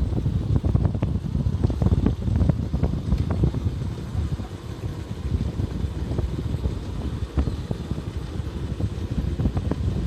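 Wind buffeting the microphone over the running noise of a moving vehicle: a heavy low rumble broken by frequent short knocks.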